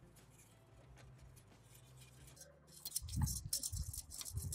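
Faint irregular rustling and scraping of hands and body moving around the pipe, with a metal mounting strap being handled. It starts about three seconds in, after a quiet stretch.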